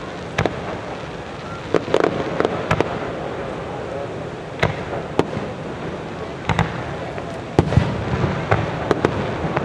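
Aerial fireworks shells bursting: a dozen or so sharp bangs at irregular intervals, coming thicker in the last few seconds.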